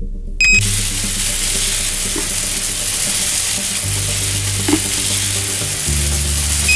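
A steady, loud hiss that switches on with a click about half a second in and cuts off with a click at the end, with quiet music notes underneath.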